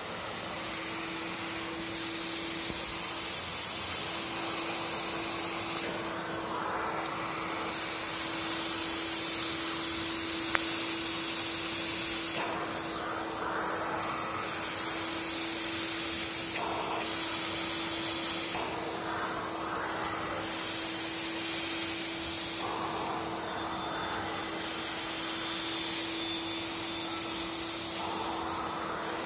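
Vacuum cleaner running steadily, with a hose, metal wand and floor nozzle drawn over concrete stair treads: a constant hum under a rushing hiss that changes in tone every few seconds as the nozzle moves from step to step. One sharp click about ten seconds in.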